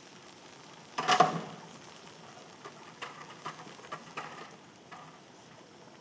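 Blue plastic bucket and its handle knocking and clattering as a young western lowland gorilla handles it: one loud clatter about a second in, then several lighter knocks and taps, over a faint steady hiss of rain.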